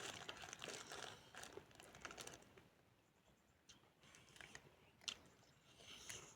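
A person chewing and crunching food close to the microphone: a dense run of crunchy chews for the first couple of seconds, then fainter chewing, with one sharp click about five seconds in.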